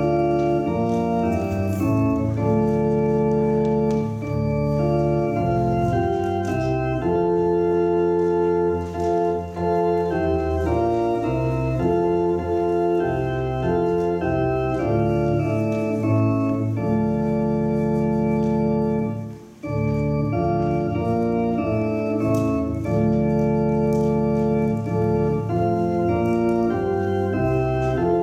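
Organ playing slow, sustained chords that change every second or so, with a brief break between phrases about two-thirds of the way through.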